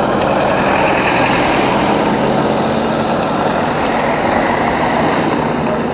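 A car engine running close by over steady street traffic noise, with a low engine hum that fades about four and a half seconds in.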